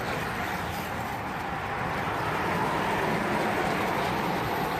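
Road racing bicycles rolling past in a pack, a steady hum of tyres and bikes.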